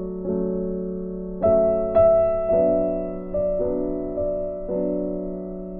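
Background music of slow, sustained chords, with a new chord struck every half second to a second and each one fading away.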